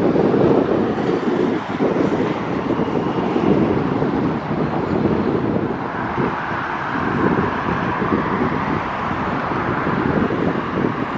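Wind buffeting the microphone in gusts. About halfway through, the rising hiss and faint high whine of an approaching jet airliner's engines come in.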